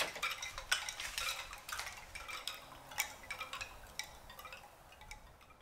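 Hand-made wind chime of sticks gathered from a forest, set swinging by hand and clacking together. A quick jumble of light wooden knocks, some ringing briefly, thins out and fades over a few seconds.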